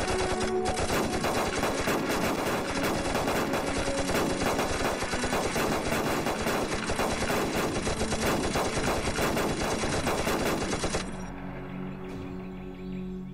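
Many automatic weapons firing continuous volleys into the air as a gun salute, a dense rattle of shots that stops abruptly about eleven seconds in. Soft music with held low notes runs under it and carries on alone after the firing stops.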